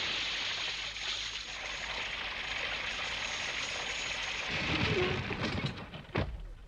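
Cartoon sound effect of water spray showering back down after a big splash, a steady hiss like heavy rain. About four and a half seconds in it gives way to a rumbling clatter with a few sharp knocks, the loudest just after six seconds.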